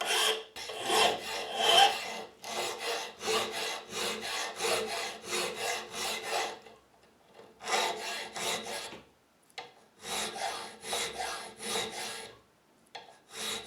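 Hand file rasping on a key blank in quick back-and-forth strokes, in several runs with short pauses between. The oversized blank is being filed down to fit the lock's keyway.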